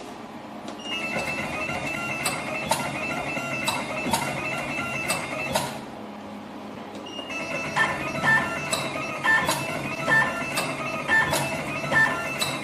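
Automatic wire stripping and twisting machine running a cycle: its stepper motors whine at a steady high pitch while wire is fed, with regular clicks of the cutting and stripping blades. The sound dips briefly about six seconds in, then resumes in an even rhythm of about one cycle a second.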